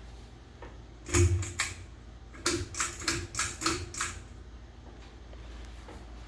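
Ceiling fan switch clicking: three sharp clicks about a second in, then six more at about three a second, over a steady low hum.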